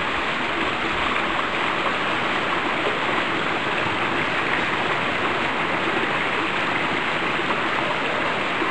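Steady, unbroken rushing of a stream's running water.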